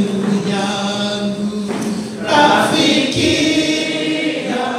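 A church congregation singing together, several voices holding long notes.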